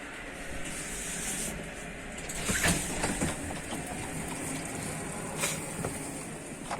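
Steady hum and hiss inside a Stadler FLIRT ED160 electric multiple unit, from its onboard ventilation and equipment, with a few knocks and clicks about two and a half to three seconds in and once more about five and a half seconds in.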